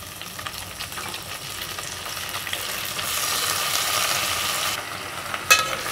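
Hot oil sizzling and crackling under freshly added moringa (drumstick) leaves and sautéed onions in a pan; the sizzle grows louder about halfway through, then drops back, with a brief sharp sound near the end.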